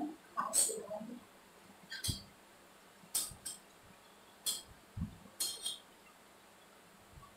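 Roti being crumbled and mashed by hand in a steel plate, with about seven light, sharp clinks spaced irregularly through it.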